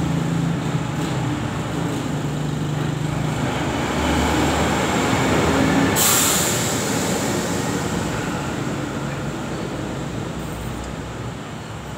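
Steady background rumble of vehicle engines and traffic, with a sudden loud hiss about halfway through that fades away over about a second.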